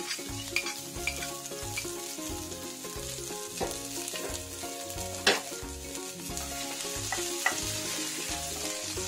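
Chopped garlic frying in hot mustard oil in a nonstick pan, with a steady sizzle as a spatula stirs it. One sharp knock about five seconds in, with a few lighter clicks.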